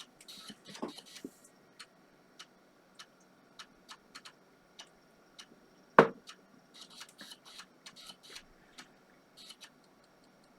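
3.5-inch 1.44 MB floppy drive booting the PC from a boot disk: irregular head-step clicks, with short runs of rattling seeks about half a second in and again from about seven to eight and a half seconds in. One sharper knock about six seconds in.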